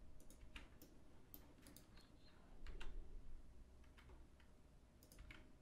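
Faint, scattered clicks of a computer mouse and keyboard, a dozen or so spread unevenly over a few seconds.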